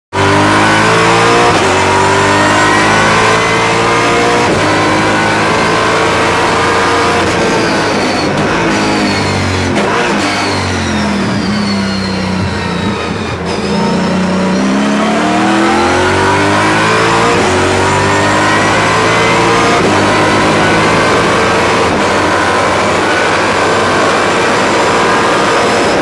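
Mercedes C63 AMG race car's V8 engine heard from inside the cockpit, revving up through the gears with a drop in pitch at each upshift. About halfway it slows: the revs fall away under braking and downshifts for a slow corner, then it pulls hard up through the gears again.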